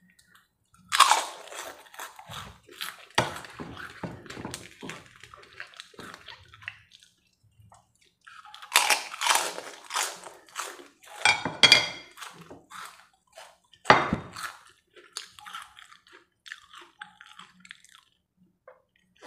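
A person eating chicken noodles close to the microphone: wet chewing and lip-smacking mouth noises coming in irregular bursts with short quiet gaps.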